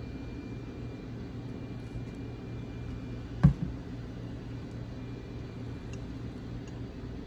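Steady low hum of room noise, broken about halfway through by one sharp knock, with a smaller knock right after.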